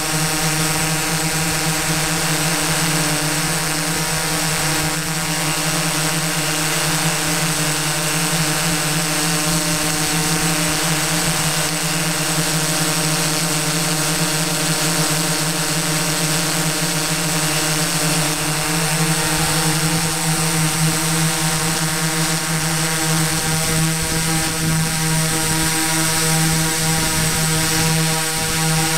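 A drone's electric motors and propellers humming steadily in flight, with a slight shift in pitch about two-thirds of the way through.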